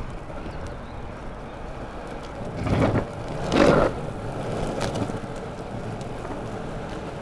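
Longboard wheels rolling over a path, a steady rumble that swells louder twice about three seconds in as the board crosses rougher ground.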